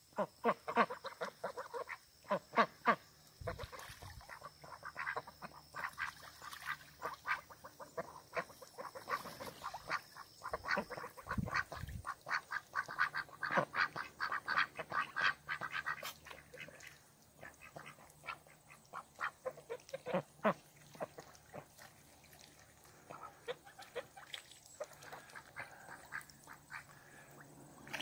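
A flock of young Pekin ducks and Danish geese calling as they swim, a quick stream of short quacks and honks. The calls come thick and fast for the first half, then thin out to scattered ones.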